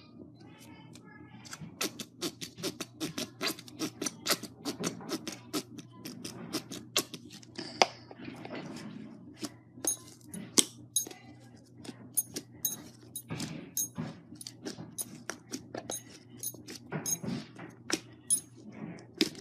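Slime being squeezed and worked by hand, giving a run of irregular sharp clicks and pops, several a second, over a faint steady hum.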